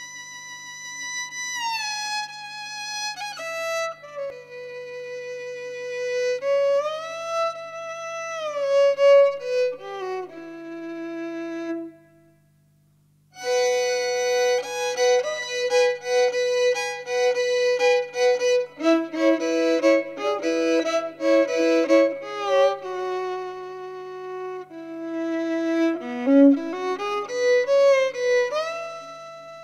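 Instrumental music: a solo bowed string instrument, heard as a violin, plays a slow melody with sliding notes. It breaks off briefly about twelve seconds in, then returns fuller, with several notes sounding together.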